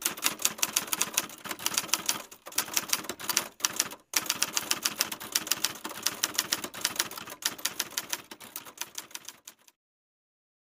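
Typewriter sound effect: a fast, uneven run of key clacks that breaks off briefly twice and stops about a second before the end.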